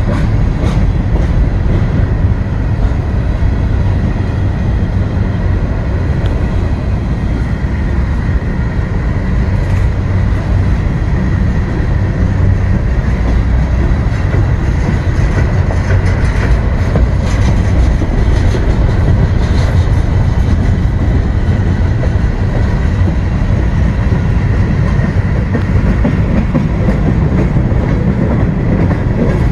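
Norfolk Southern covered hopper cars rolling past close by: a steady rumble of steel wheels on rail, with clicks and clacks at rail joints. A faint, steady high tone sits over it.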